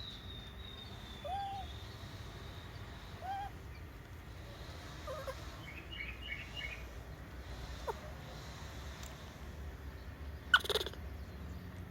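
A few short animal calls: two brief arched hoots about a second apart, then a quick cluster of chirps, over a steady low hum. A single sharp knock near the end is the loudest sound.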